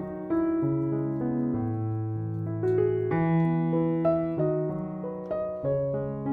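Background piano music: a gentle melody over held chords, its notes changing about every half second.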